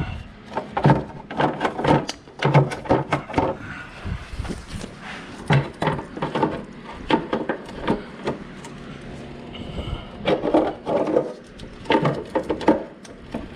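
Irregular knocking, clicking and clattering of metal parts as the oil dipstick tube is worked and pulled out of the engine bay by hand.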